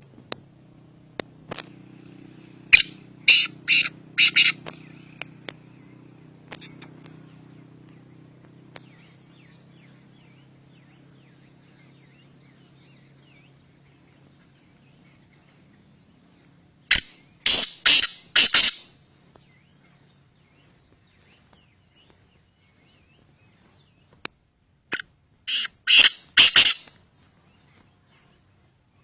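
Black francolin calling: three loud bouts of about five sharp, rapid notes each, one a few seconds in, one midway and one near the end.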